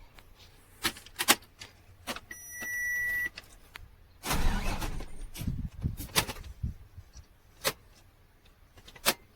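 Scattered clicks and knocks, with a single electronic beep about a second long a couple of seconds in, and a stretch of rustling, clattering noise near the middle.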